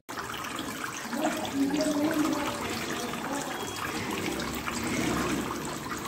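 Water falling in thin streams from holes in a plastic bottle into the water of a plastic bowl below, a steady trickling and splashing with some gurgling.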